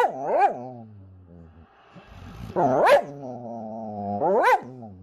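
A dog making drawn-out, howl-like calls that rise and fall in pitch, four of them: two short ones at the start, a longer one in the middle, and a short one near the end.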